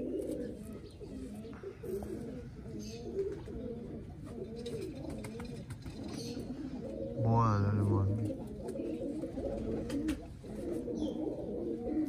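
Domestic pigeons cooing continuously, several birds overlapping, with one louder, lower call a little past the middle.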